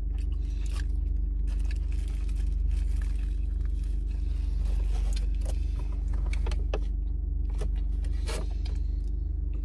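A car engine idling with a steady low hum, heard from inside the cabin. Over it come scattered soft clicks and rustles from chewing a burger and handling its paper wrapper.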